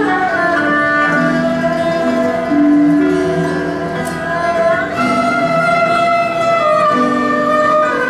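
Small Chinese traditional music ensemble playing a slow, sustained melody. The bowed strings carry the tune over a plucked accompaniment of guitar and ruan.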